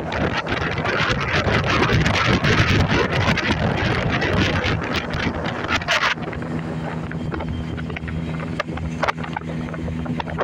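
Wind buffeting the microphone with a loud, rough rumble. It eases about six seconds in, and a steady low hum is then heard under it.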